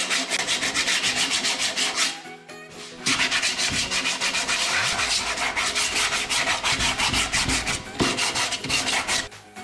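Hand sanding: sandpaper on a hand-held sanding block rubbed back and forth in quick, even strokes over the body-filler patches on a motorcycle fuel tank. There is a short pause about two seconds in, then the strokes start again.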